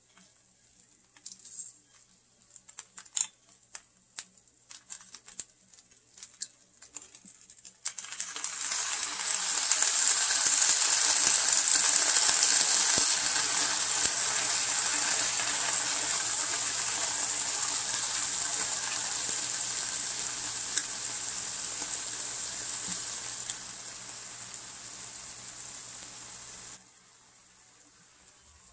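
Brussels sprouts sizzling in a hot frying pan as they sauté with balsamic vinegar: a loud hiss that starts about eight seconds in, slowly fades, and cuts off sharply near the end. Before it there are only a few light clicks of handling.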